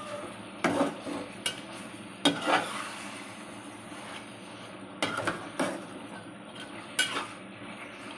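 A metal spatula scraping and knocking against a black wok-style frying pan as chicken pieces in a thick blended spice paste are stirred, in about six irregular strokes. A low steady sizzle of the chicken frying runs underneath.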